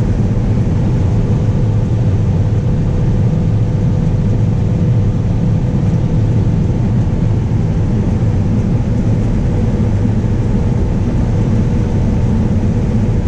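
John Deere combine running steadily while combining standing wheat: a continuous low machine drone with a faint steady whine over it.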